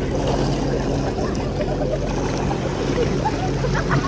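Motorboat engine running at a steady pitch, under a wash of water and wind noise.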